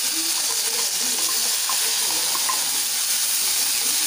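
Gravy-coated goat liver pieces frying with onions in oil in a steel wok, a steady sizzle as a spoon stirs them.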